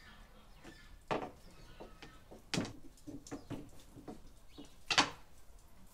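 Long, thin wooden rolling pin rolling dough thin on a wooden board, giving a few sharp knocks: the loudest about a second in, about two and a half seconds in and near the end. Softer taps come in a quick run between them.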